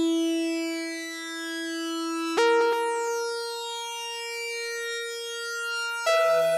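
Background music: sustained synthesizer chords, with a new chord struck about two seconds in and another near the end.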